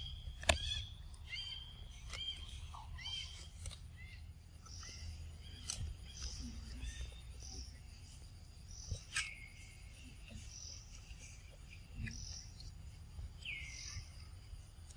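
Scattered high-pitched animal calls and chirps, with a few sharp clicks.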